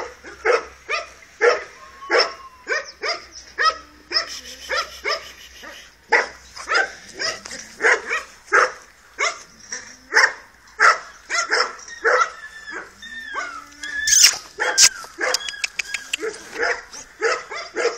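A dog barking over and over, about two barks a second, with a few short whines in between. A couple of sharp knocks come about fourteen seconds in.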